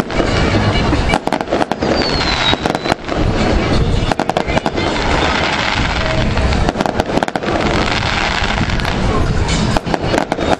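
A fireworks display: a dense run of bangs and crackles over a continuous rumble, with a short falling whistle about two seconds in.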